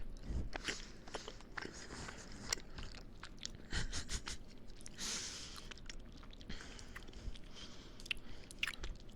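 A person biting and chewing a burrito of refried beans, chili, rice, cheese and sour cream close to the microphone: irregular small wet clicks throughout, thickening about five seconds in.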